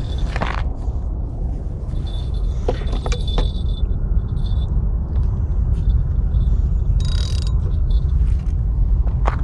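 Wind buffeting the microphone in a steady low rumble, with a light metallic jingling in the first few seconds.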